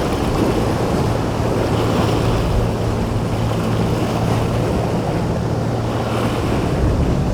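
Boat engine running steadily with a low hum, mixed with waves and wind buffeting the microphone.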